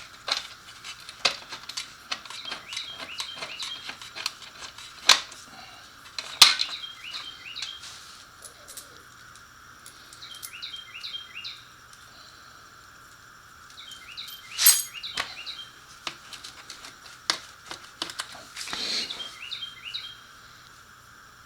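Scattered metallic clinks and knocks of hand tools and hardware as the muffler is unbolted from a motorcycle's exhaust, a few louder knocks among them. A bird chirps in short runs several times over a faint steady hum.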